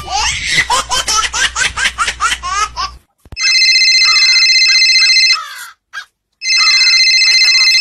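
Overdubbed comic sound effects: rapid, high-pitched warbling chatter for about three seconds, then a loud electronic ringing tone in two blasts of about two seconds each, with a brief silence between them.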